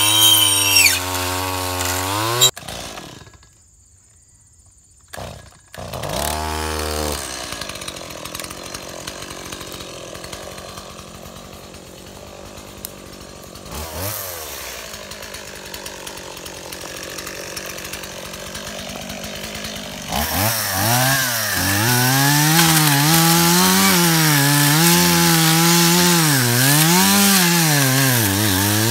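A Stihl FS76 two-stroke brush cutter fitted with a saw blade runs for the first couple of seconds, then stops. After a short quiet gap, a Stihl 018 two-stroke chainsaw runs quietly at idle with one brief rev, and from about 20 seconds in it runs at full throttle cutting through thick brush, its pitch dipping and rising again and again as the chain loads in the wood.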